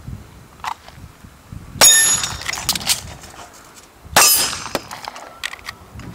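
Two handgun shots about two and a half seconds apart, the first followed by a clear metallic ring of a hit steel target. A few small clicks come between and after them as the pistol is handled and reloaded.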